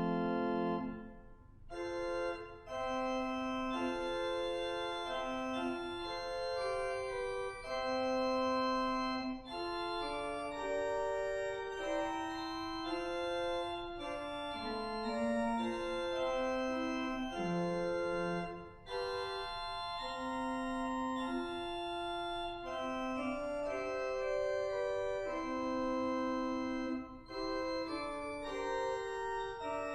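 Organ music: a slow piece of sustained notes and chords, with short breaks between phrases, the first about a second in.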